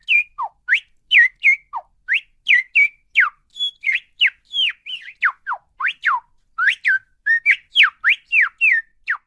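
Parakeet giving a rapid series of short, shrill whistled chirps, about three a second, most sliding quickly down in pitch and some sliding up; the calls stop near the end.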